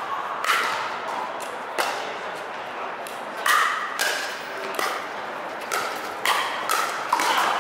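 Pickleball paddles hitting a plastic ball in a rally: about eight sharp hits, spaced well apart at first and coming faster, about two a second, near the end as play moves to the net.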